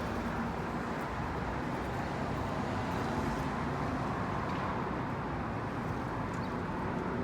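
Steady hum of road traffic going by, an even wash of noise with no single event standing out.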